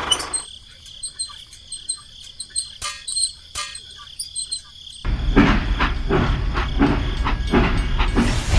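Crickets chirping steadily. About five seconds in, a loud, low, engine-like rumble with a rough, uneven pulse starts up over them.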